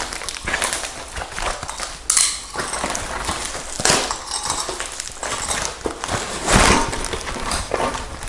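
White packing foam and plastic wrap crinkling and rustling as a bundle is pulled open by hand, with louder scrunches about two, four and six and a half seconds in.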